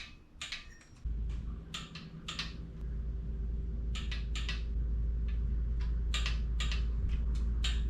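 Ratcheting clicks from a torque wrench in short runs of strokes as cylinder head bolts are pulled down to 22 ft-lb. About a second in, a steady low machine hum starts up and slowly grows louder underneath.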